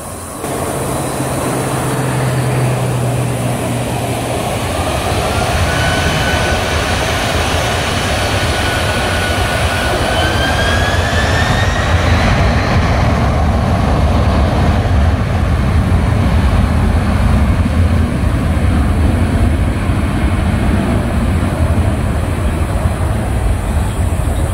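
A Boeing 767-300 jet airliner's two turbofan engines spooling up to takeoff thrust as the takeoff roll begins. A whine rises in pitch a few seconds in, holds, then climbs again about ten seconds in, under a roar that keeps growing louder.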